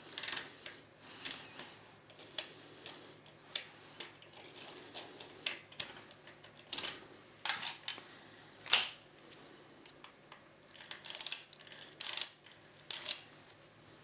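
Irregular sharp metallic clicks and clinks as a key is worked in and withdrawn from a Medeco Original cylinder and the lock and tools are handled. The loudest clicks come near the middle and near the end.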